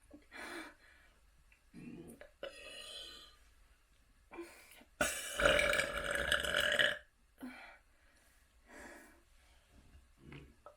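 A person burping: one long, loud burp lasting about two seconds, about five seconds in, with shorter, fainter sounds before and after it.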